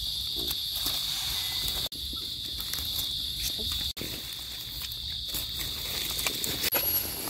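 Forest insects in a steady, high-pitched chorus, broken for an instant twice. Near the end it gives way to a thinner, higher insect tone.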